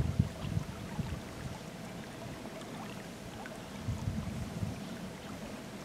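Low, uneven rumbles of wind buffeting the microphone, strongest at the start and again about four seconds in.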